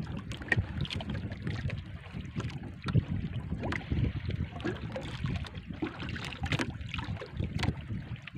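Wind buffeting the microphone and water slapping against the hull of a small outrigger boat, with frequent short knocks and splashes.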